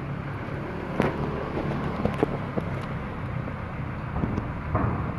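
A steady low machine hum, with a few short sharp clicks about a second in and around two seconds.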